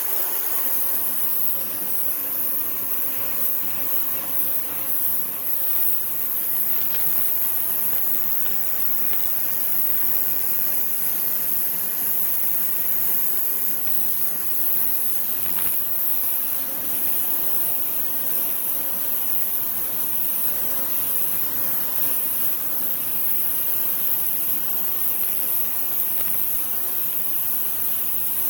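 Ryobi 1600 PSI electric pressure washer running steadily, its motor and pump humming under the loud hiss of the high-pressure water jet spraying.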